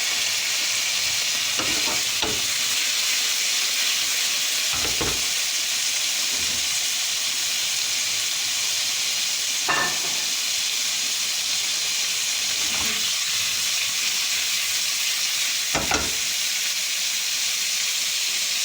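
Fried chicken seekh kababs sizzling steadily in a pan over high heat after a light splash of water, browning. Several short knocks come as the kababs are moved around the pan.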